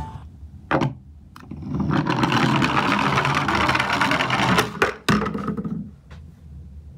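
Small plastic toy garbage truck worked along a wooden surface: a rapid mechanical whirring rattle for about three seconds, with a few sharp clicks before and after it.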